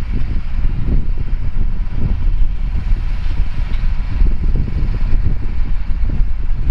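John Deere 2140 tractor's diesel engine running steadily, a loud low rumble, with wind buffeting the microphone.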